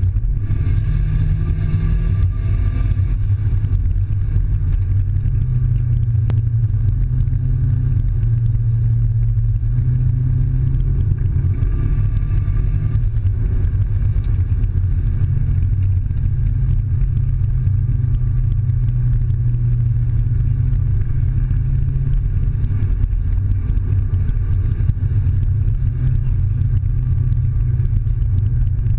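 Cabin noise of a Mazda6 on the move: a steady low drone of engine and tyres, with the engine note shifting in pitch a few times.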